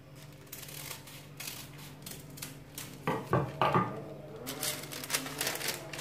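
Folded sheet of baking paper rustling as it is handled and unfolded, the crackling getting denser and louder near the end.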